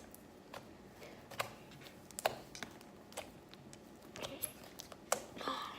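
Scattered light clicks and taps at irregular intervals, about ten in all, from small objects being handled and set down on a table.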